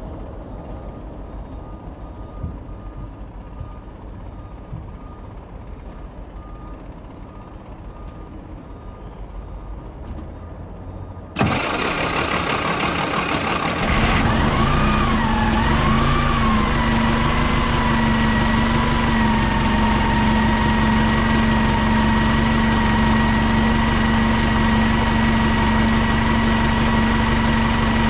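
1998 New Flyer C40LF bus's rear-mounted natural-gas engine cold-started: after about eleven seconds of low background noise the starter cranks suddenly, the engine catches about two and a half seconds later, and its idle speed wavers briefly before settling into a steady idle with a steady whine over it.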